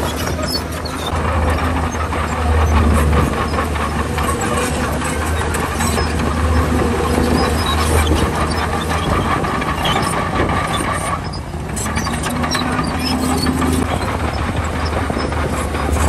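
Komatsu bulldozer's diesel engine running under load, with the steady clanking and clicking of its steel crawler tracks. The engine eases briefly a little before the end.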